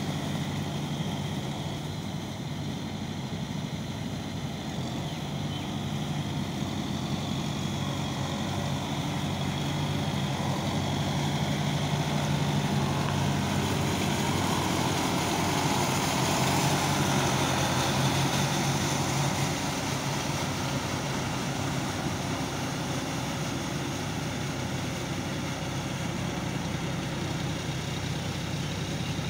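Kubota MU5502 tractor's four-cylinder diesel engine running steadily under load while driving a rotavator through a flooded paddy field for puddling. It grows louder from a little before halfway as the tractor passes close, then eases off as it moves away.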